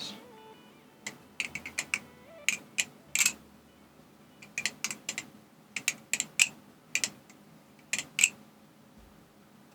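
Squid Industries Kraken balisong being flipped: irregular sharp metallic clicks and clacks as the handles and latch strike each other, in quick little clusters of two to five.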